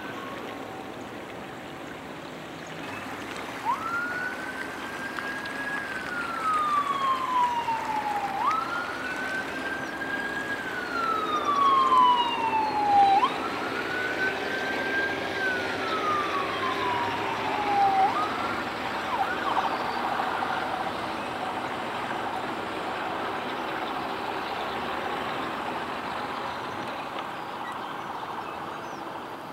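A siren wailing in four regular cycles, each a quick rise in pitch, a brief hold, then a slow fall, over a steady background hum.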